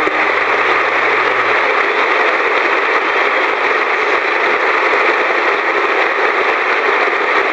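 Steady, loud static hiss with no music or voice in it, typical of a worn videotape transfer.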